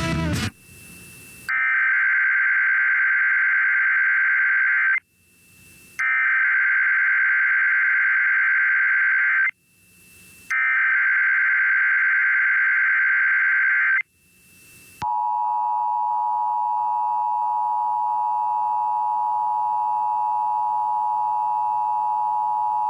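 Emergency Alert System tones on FM radio: three bursts of SAME header data tones, each about three and a half seconds long with about a second of silence between them, then the steady two-tone attention signal held for about eight seconds. Together they announce an emergency alert, here a tornado watch.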